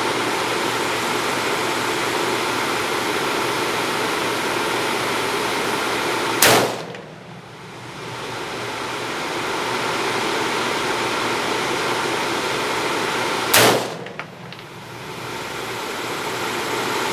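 Two single rifle shots from an AR-15 in .223 fitted with an Assassin muzzle brake, each a sharp crack, about seven seconds apart: one a little over a third of the way in, one about four-fifths in. Between them runs a steady background hiss that drops away after each shot and slowly builds back.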